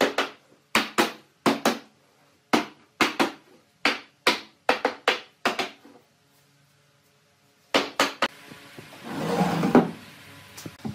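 Hammer striking wood: sharp blows, about two to three a second, for the first five seconds or so. After a pause of about two seconds come three more blows, then a short burst of scraping noise near the end.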